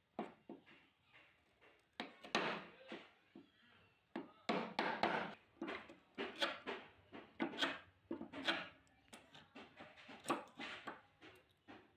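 A wood chisel chopping and paring out a notch in the edge of a laminated plywood door for a sliding-door wheel. It makes an irregular run of short, sharp cracks and scrapes as the blade splits the wood, with a few longer scraping strokes.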